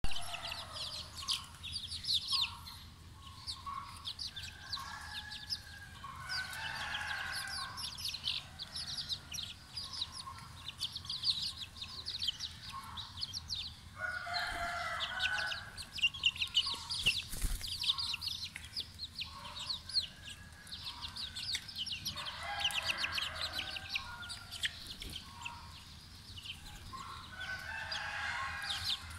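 Flock of young ISA Brown chickens peeping constantly as they feed, with louder, lower chicken calls breaking in every several seconds.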